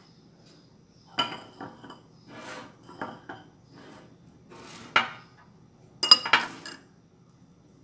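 Small spoon clinking against a ceramic cup and saucer, with light scraping between: a string of sharp clinks, the loudest cluster about six seconds in.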